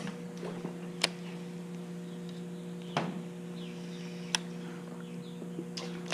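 A steady low hum with about four sharp clicks a second or two apart, and a few faint chirps.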